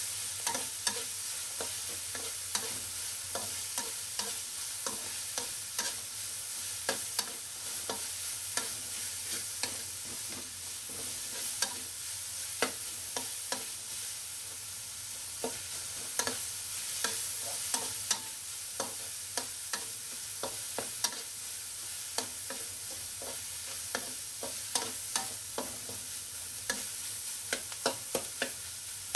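Minced pork sizzling in a hot wok while a metal spatula stirs and scrapes it, with frequent sharp clicks of the spatula against the wok over a steady sizzle.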